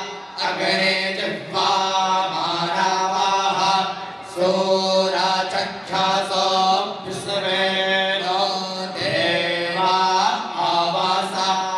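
Hindu devotional mantra chanted in long sung phrases over a steady low drone, with short pauses for breath between phrases.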